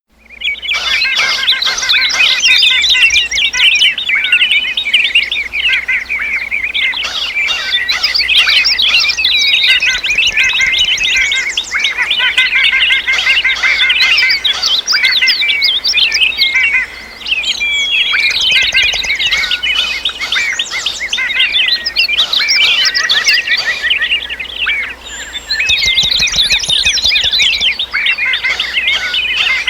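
Many small birds chirping and singing at once, a dense chorus of overlapping trills and tweets that dips briefly twice.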